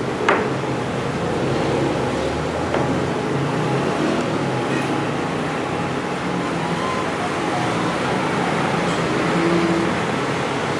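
Steady background rumble of road traffic, with a sharp click just after the start and a fainter one later.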